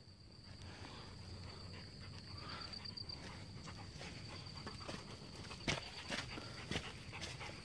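Footsteps on a rocky, leaf-strewn dirt trail: faint scuffing, then a few sharper steps about two-thirds of the way through. A thin steady high tone runs through the first three seconds.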